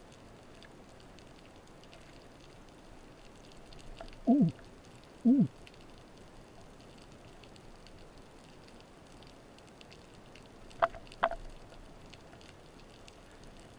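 Underwater ambience with a faint steady crackle. Two loud short sounds sweep sharply down in pitch, one about four seconds in and the next a second later, and two quick higher clicks follow close together around eleven seconds in.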